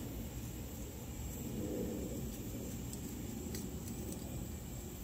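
Steady low rumble of background noise, swelling slightly near the middle, with one faint click a little past halfway.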